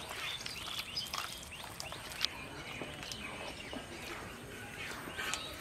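Faint wet squelching and scraping of hands kneading chicken pieces into a thick spice paste in a steel bowl, with one sharper click a little past two seconds in.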